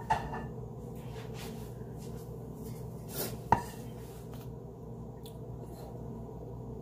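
Kitchen clatter from a red cooking pot being set down on the counter: a clink right at the start, then a sharp clank with a brief ring about three and a half seconds in. A steady low hum runs underneath.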